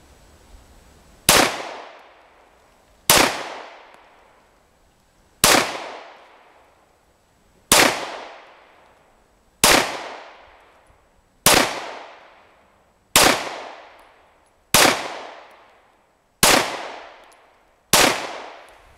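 Walther PPQ M2 9×19 mm pistol fired unsuppressed, ten single shots about one every one and a half to two seconds, each sharp crack trailing off in a short echo.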